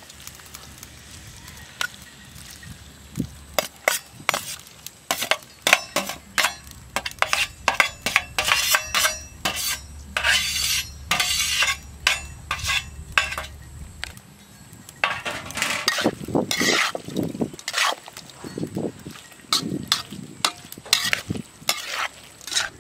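Metal spatula scraping chili-marinated pork pieces off a steel tray into a wok and stirring them, with many short scrapes and clinks of metal on metal and a sizzle as the meat hits the hot pan.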